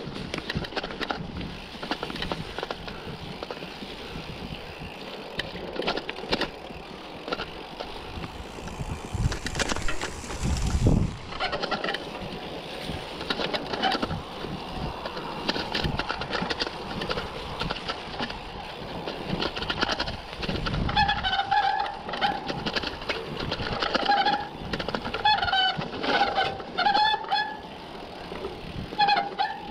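Mountain bike being ridden along a dirt trail: steady tyre and wind noise with frequent knocks and rattles over bumps. From about two-thirds of the way through, short high tones squeal again and again.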